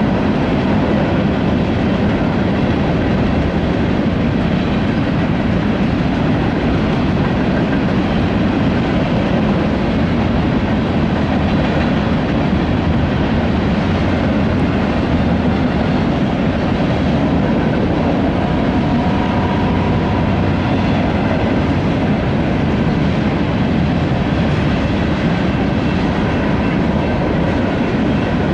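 BNSF freight train's cars rolling steadily past: a continuous rumble of steel wheels on the rails with some clickety-clack over the rail joints.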